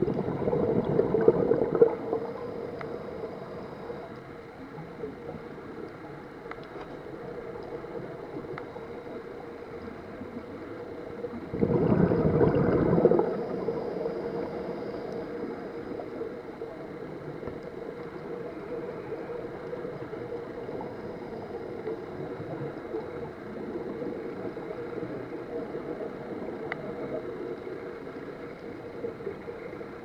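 Muffled underwater sound heard from a diver's camera: two loud rushes of exhaled air bubbling out of a scuba regulator, one at the start and one about twelve seconds in, each lasting about two seconds. A steady low hum fills the time between them.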